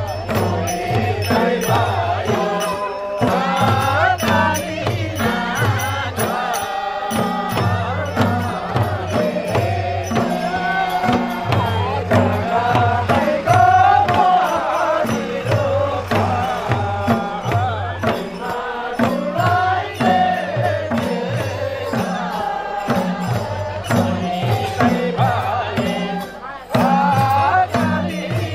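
Several madal hand drums beaten in a steady, repeating rhythm under a group singing a chanted Nepali folk song.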